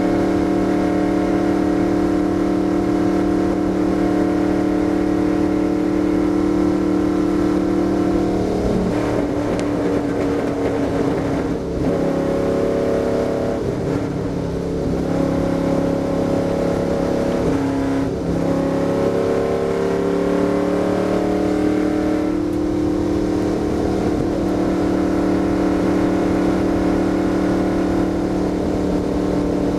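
Stock car's V8 engine at full throttle, heard from inside the cockpit, holding a steady high note on the straight. About nine seconds in the note drops and wavers as the car slows through the turn, then climbs back up around twenty-two seconds in and holds steady again on the next straight.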